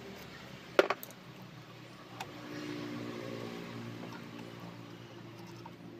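Metal clicks from a multicab's rear drum brake hardware being worked off with pliers: one sharp, ringing snap about a second in, then a lighter click about a second later.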